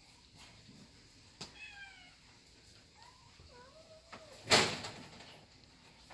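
Kitten mewing: a short, slightly falling meow about a second and a half in, then a few faint wavering calls. About four and a half seconds in, a sudden loud noise, brief and much louder than the calls.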